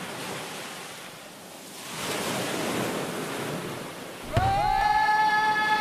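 Ocean surf washing up onto a sandy beach, with a wave swelling and rushing in about two seconds in. A little over four seconds in, music cuts in with a sustained note that slides up into pitch and then holds.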